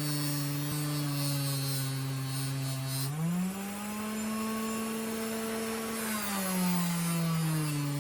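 Power tool spinning a 3-inch fiber abrasive wheel against a rusty pocket-knife blade, its motor hum steady with a gritty scrubbing hiss. About three seconds in the motor pitch rises and the scrubbing thins as the load comes off, then the pitch sinks back near the end as the wheel bears on the steel again.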